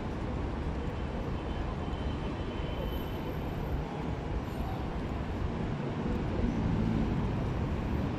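Steady street traffic on a busy city avenue: a low rumble of passing vehicles, swelling somewhat louder near the end.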